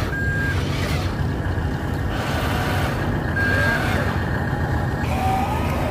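Steady low engine-like rumble from a radio-controlled dump truck as it tips its bed, with a few brief high tones and short pitch glides over it.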